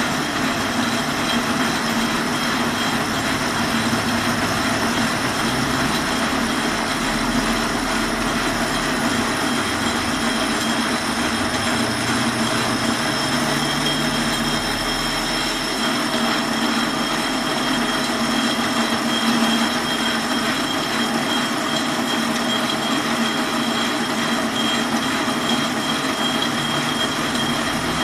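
Metal lathe turning a hard steel bar: the spinning chuck and the tool cutting the steel make a steady machining noise with a thin, steady high-pitched whine over a low hum.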